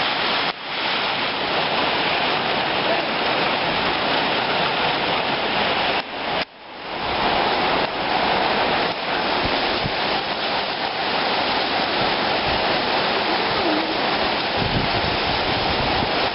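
Heavy rain pouring in strong wind, a dense steady rush that drops out briefly about half a second in and again about six seconds in.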